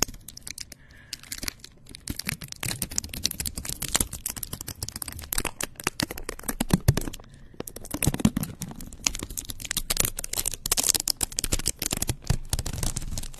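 Long acrylic fingernails scratching and tapping right on a microphone's mesh head: a dense, fast run of close crackling clicks, with a few deeper rubbing sounds from handling the mic.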